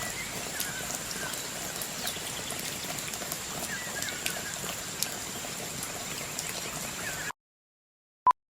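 Outdoor hiss of light rain with scattered drip ticks, a thin steady high whine and a few short chirps. It cuts off abruptly about seven seconds in, and a single short electronic beep follows near the end.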